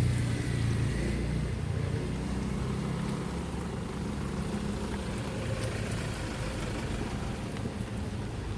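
A motor vehicle passing on the street, its low engine rumble loudest about a second in and then fading into steady traffic noise.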